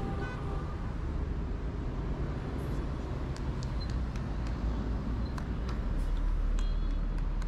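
Steady rumble of city road traffic, swelling slightly about six seconds in, with a few faint short ticks and chirps over it.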